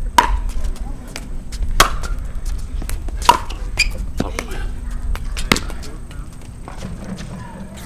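Pickleball rally: paddles hitting a plastic pickleball, with about five sharp pops roughly a second and a half apart, beginning with the serve, and softer clicks between them.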